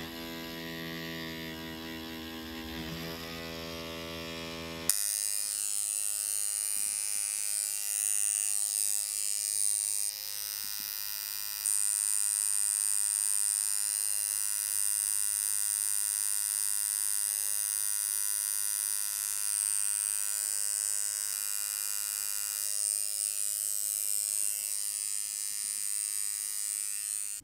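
Pen-style rotary tattoo machine running steadily with a buzzing whir as it shades skin. It shifts abruptly in tone and loudness about five seconds in and again around ten and twelve seconds in.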